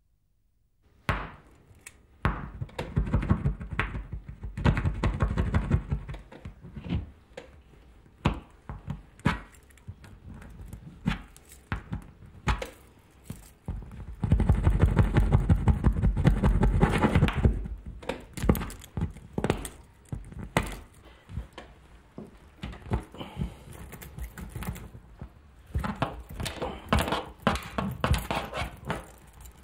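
A pointed metal tool gouging and scraping at a toilet cubicle partition wall, with sharp knocks and taps throughout and two longer stretches of hard scraping, a few seconds in and around the middle.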